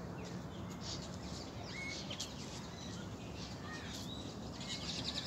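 Small birds chirping in short, high notes and quick little glides, a busier flurry near the end, over a steady low background rumble.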